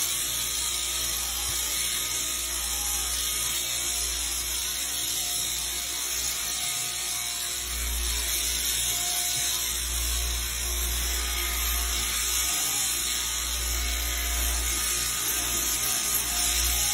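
Electric sheep-shearing handpiece on an overhead drive shaft running steadily as it shears the fleece off a sheep, with a constant low motor hum underneath.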